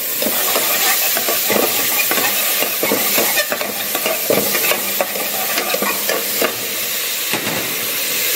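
Chopped onion and tomato sizzling in hot oil in an aluminium pot while a steel ladle stirs them, scraping and knocking against the pot's bottom and sides in quick, irregular strokes. The vegetables are being sautéed as a gravy base.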